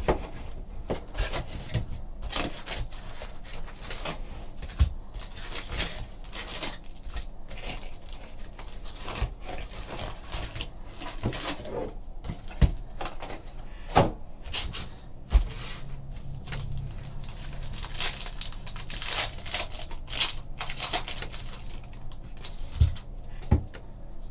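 A cardboard trading-card hobby box being opened by hand, its packs lifted out and a stack of cards handled: a run of cardboard rustles, scrapes and sharp taps.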